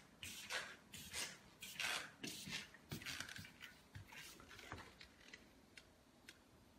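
Irregular soft rustling and shuffling close to the microphone, two or three strokes a second, from a handheld phone camera being moved and handled. It dies away about five seconds in.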